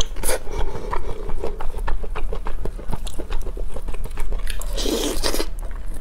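Close-miked eating of marinated chicken wings: biting and chewing the meat off the bones, with many short wet clicks and a louder, noisier stretch about five seconds in.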